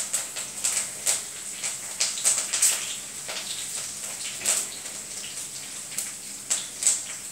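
Hot oil spluttering in a pan of tadka (Indian tempering) with curry leaves just added: a steady sizzle with irregular sharp crackles and pops as the leaves fry with tempering seeds, dried red chilli and cumin.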